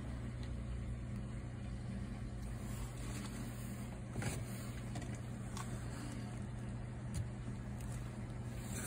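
Steady low hum of running aquarium equipment, with a couple of faint clicks about four and seven seconds in.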